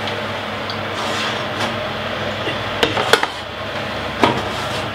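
Metal loaf tins of bread taken from the oven and set down on a glass ceramic hob, giving a few separate knocks and clinks over a steady hum.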